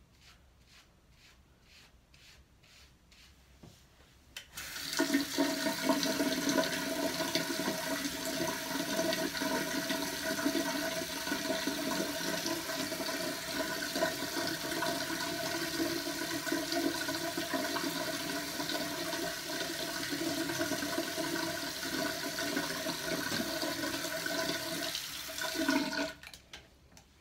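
Toilet flushing and its tank refilling: rushing water with a steady hiss and hum that starts suddenly about four seconds in and cuts off near the end.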